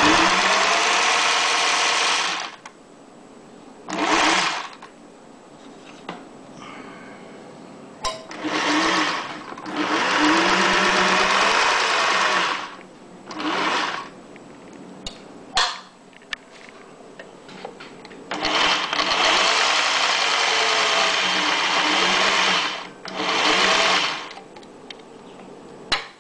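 Singer 401A sewing machine running in about seven short runs of one to four seconds, its motor speeding up at the start of each run and winding down at the end. Brief clicks come between the runs.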